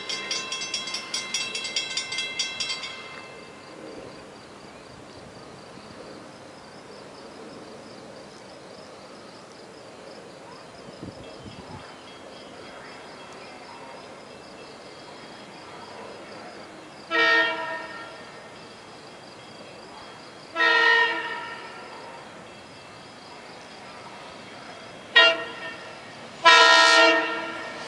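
Horn of an approaching SEPTA regional rail train, taken for a Silverliner IV, sounding the grade-crossing signal: two long blasts, a short one and a final long one, the last the loudest. A ringing chord fades out over the first few seconds.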